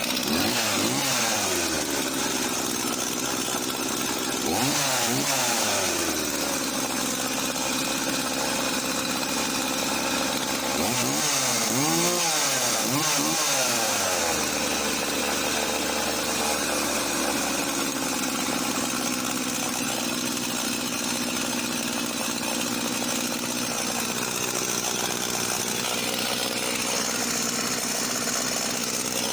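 Husqvarna Rancher 50 two-stroke chainsaw running just after starting with the choke off, blipped up and down in quick revs several times, including three in a row about halfway through, and holding a steady speed in between.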